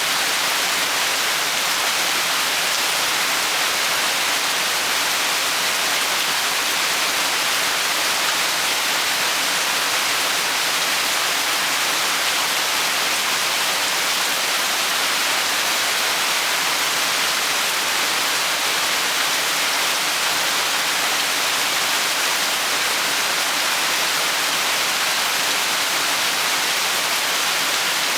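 Steady rain falling: an even, unbroken hiss with no separate drops or other sounds standing out.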